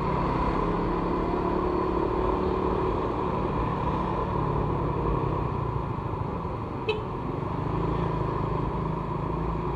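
Motorcycle engine running steadily while riding at low speed through traffic, with road and wind noise. There is one faint click about seven seconds in.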